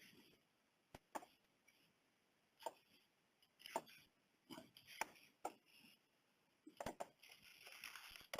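Knife cutting a bell pepper on a cutting board: a dozen or so faint, irregularly spaced knife taps and slicing sounds.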